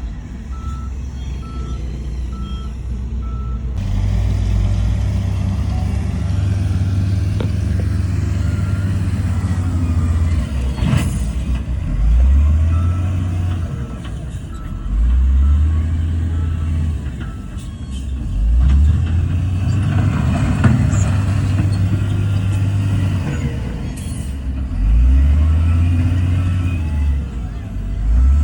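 Heavy diesel engine of earthmoving machinery working, its revs rising and falling again and again under load. A reversing alarm beeps steadily in the first few seconds and briefly again later.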